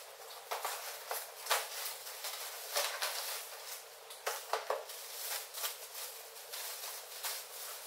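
Bubble wrap and cardboard packaging rustling and crinkling as a car spoiler is pulled out of its box and unwrapped, a run of irregular sharp crackles.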